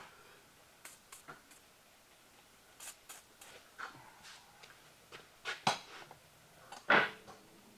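Scattered light metallic clicks and clinks of a hand tool and small metal parts as the 10 mm bracket bolts holding the wheel speed sensor wire are taken off a truck's front upper control arm. The loudest clink comes near the end.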